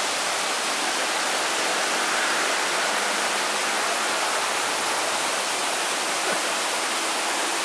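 A small waterfall spilling over a low weir: a steady rush of falling water.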